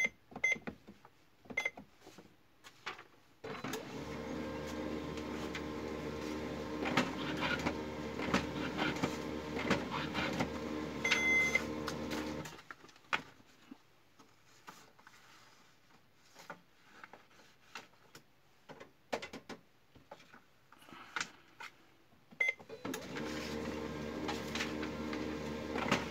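HP LaserJet 3055 MFP laser printer running a print job: its motor and gear train run with a steady hum for about nine seconds, then stop, leaving scattered clicks, and start again near the end. It runs smoothly without the gear noise now that the jammed tray pickup and the faulty solenoid have been fixed.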